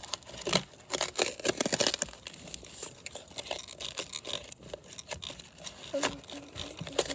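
Cardboard packaging being torn and pulled off a new scooter: irregular crinkling, tearing and scraping.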